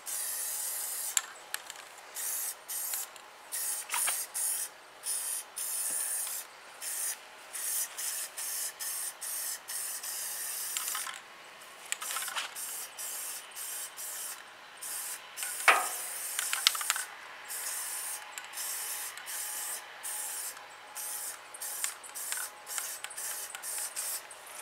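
Aerosol spray-paint can spraying in many short bursts of hiss, each under a second or so, with brief pauses between. A sharp clack, the loudest sound, comes about two-thirds of the way through.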